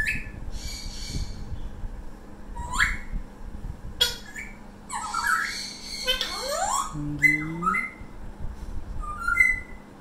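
Parrot squawks and whistles: a string of short rising whistled calls and harsh squawks, busiest around five to six seconds in, with a couple of lower rising calls just after.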